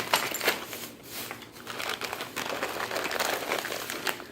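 Plastic bags and packaging crinkling and rustling in quick, irregular bursts as items are handled and pulled out of a bag.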